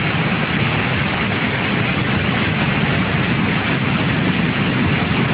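Muddy floodwater rushing in a torrent through a channel: a loud, steady, even rushing noise.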